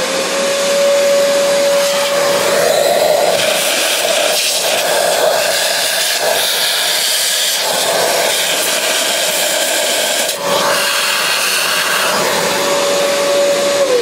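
Vacuum cleaner running, sucking coffee grounds out of the grinder's doser chute. It spins up at the start to a steady whine under rushing air that swells and dips as the nozzle moves, then winds down at the very end.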